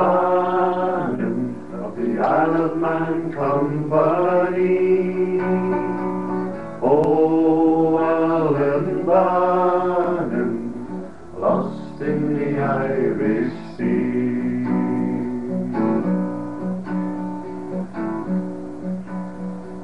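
Acoustic guitar playing with a man singing a folk melody along with it.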